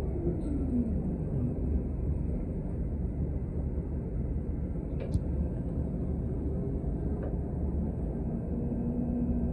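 Interior ride noise of a city transit bus under way: a steady low rumble of engine and road. A whine falls in pitch over the first second and a half, a sharp click comes about five seconds in, and a steady whine sets in near the end.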